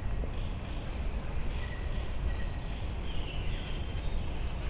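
Steady low rumble of outdoor background noise, with faint short high-pitched chirps or squeaks scattered over it.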